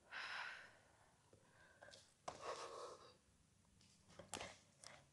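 A woman breathing out during exercise: two faint breaths about two seconds apart, followed by a few faint clicks.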